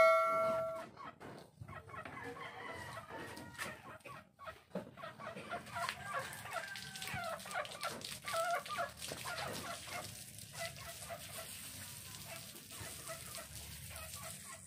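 Chickens clucking and a rooster crowing, with a ringing chime fading out in the first second.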